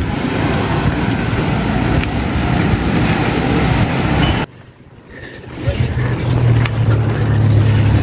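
Wind buffeting the microphone with road noise while moving along the road, cut off for about a second halfway through, then returning with a steady low hum.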